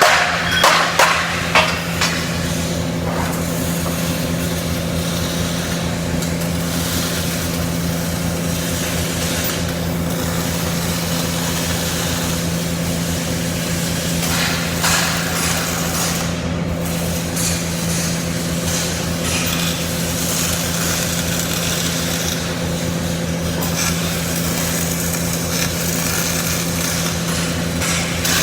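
CO2 (MIG) welding arc burning steadily, a continuous fine crackling buzz over a low machine hum, after a few knocks in the first two seconds.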